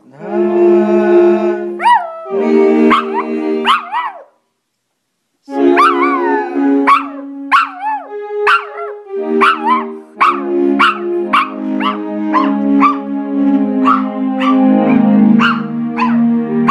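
Maltese dog howling in short rising-and-falling calls along to notes played on an electronic keyboard. The sound drops out completely for about a second a little over four seconds in.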